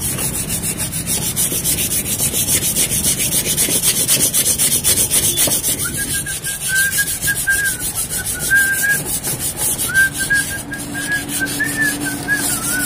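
Sandpaper (150 grit) rubbed back and forth in quick strokes on the metal heating plate of an electric tube-puncture vulcanizing machine, a steady rhythmic scratching as stuck rubber and dirt are scoured off. From about halfway a thin, wavering high whistle comes and goes over it.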